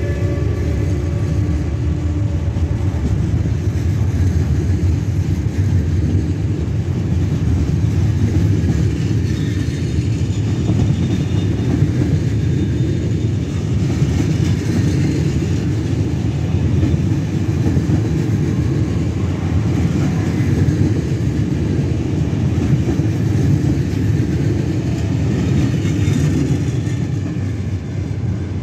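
Passenger coaches of a locomotive-hauled train rolling past, a steady rumble of wheels on rails as the train departs, fading off at the very end.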